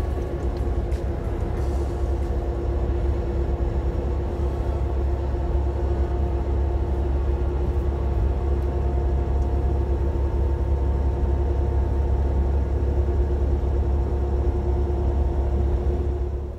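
Steady low rumble of a Volvo semi-truck running, heard from inside the cab, with a steady hum over the drone; it falls away sharply at the very end.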